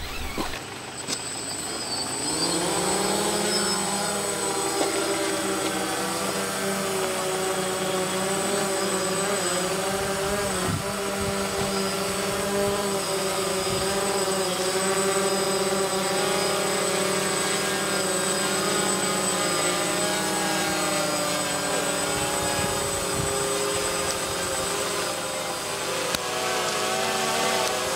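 DJI Phantom quadcopter's motors and propellers spinning up about two seconds in, then a steady whirring buzz as it flies.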